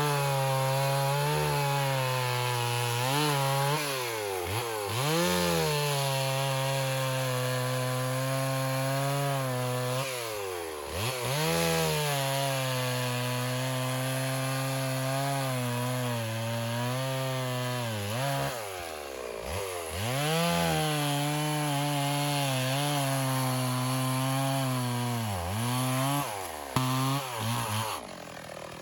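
Stihl 028 AV Super two-stroke chainsaw cutting box elder, its engine held at high revs under load. The revs drop and climb back several times between cuts. The chain has just struck a rock, and it is being tested to see whether it still cuts.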